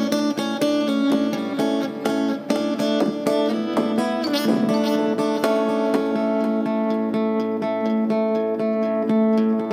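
Acoustic guitar picked through a delay effect, the notes repeating and overlapping into a ringing wash. Quick picked notes fill the first half, with a wavering pitch about halfway; after that, held notes mostly ring on with only a few new plucks.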